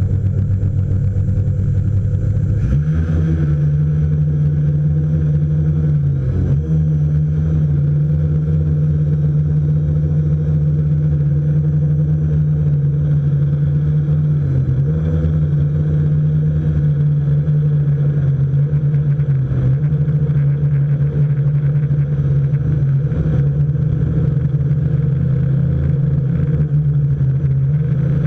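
Storm Drone quadcopter's electric motors and 10-inch propellers, heard close up from the GoPro mounted beneath it: a steady hum that speeds up about three seconds in as the drone lifts off, then holds, with a few brief dips as the throttle eases.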